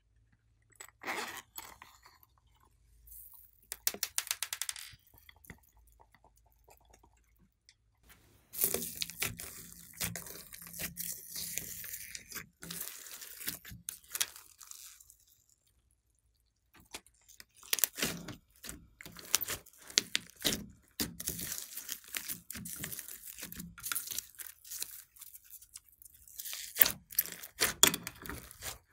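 Hands kneading, squeezing and folding soft slime mixed with foam beads, giving wet squishing with quick clicks and crackling. It comes in bursts with silent pauses in between.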